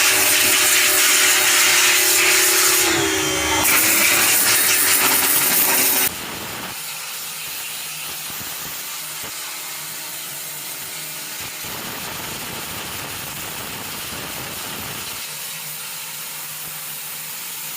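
A motor-driven tool running with a rough scraping noise, its steady hum dipping in pitch briefly a little past three seconds in as if under load. It stops abruptly about six seconds in, leaving a steady, quieter hiss.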